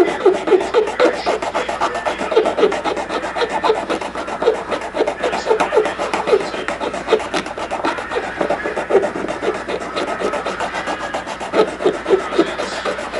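A plastic part of a 1/64 scale model car being filed down by hand, with quick back-and-forth rasping strokes in short runs, to make room for new wheels.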